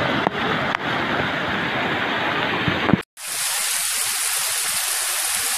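Floodwater rushing across a road, a loud steady rushing noise. About three seconds in it cuts off abruptly, and after a brief gap comes heavy rain falling, a steady hiss.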